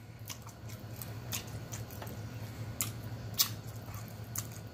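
A person chewing a mouthful of food: irregular wet smacks and mouth clicks, about nine of them, over a steady low hum.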